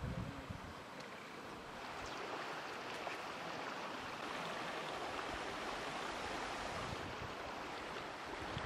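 Steady rush of flowing river water, with a few soft low thumps in the first half second.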